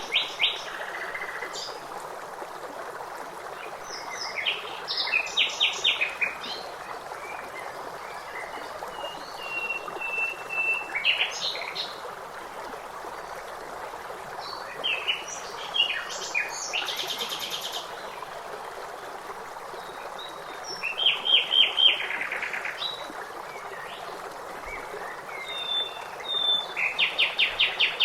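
Songbirds singing in short phrases of quickly repeated notes every few seconds, with one held whistled note, over a steady rush of flowing water.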